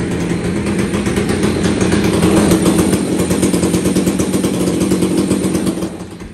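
Stihl 362 chainsaw engine running steadily in a run-in booth as a brand-new saw is run in. It drops in level near the end.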